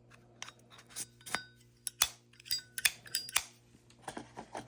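Small metal pieces of a Zippo lighter set being handled: a run of sharp clicks and clinks, some with a short metallic ring, over a steady low electrical hum.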